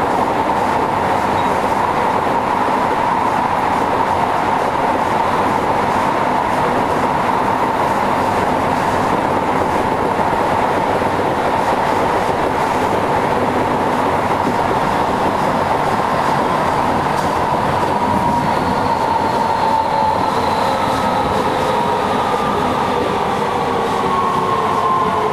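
Kyoto Municipal Subway Tozai Line 50 series train heard from inside the car while running through the tunnel: a steady rumble of wheels and running noise with a whine that holds steady. From about two-thirds of the way through, the whine and several other tones fall slowly in pitch as the train slows.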